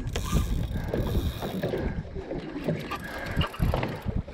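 Water slapping against the hull of a small drifting boat, with wind buffeting the microphone and irregular knocks and bumps of movement on deck.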